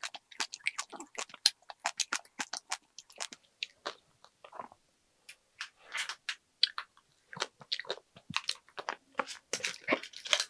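Close chewing of a sweet mouthful with sharp wet mouth clicks for the first few seconds. After a short pause, a plastic snack wrapper crinkles and a clear plastic marshmallow tray is handled.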